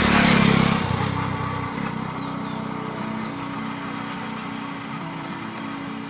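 A motor vehicle passing close by, loudest in the first second and fading away over the next second or so, with background music of steady held notes underneath.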